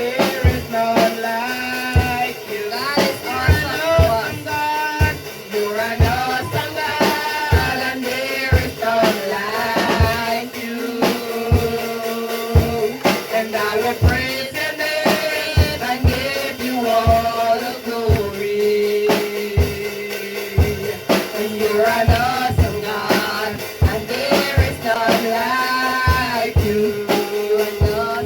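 Live gospel worship music: a drum kit keeping a steady beat under a sung or played melody.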